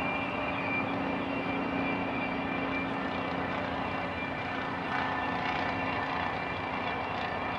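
Distant freight train rolling past, a steady drone with a constant low hum and faint high whines above it.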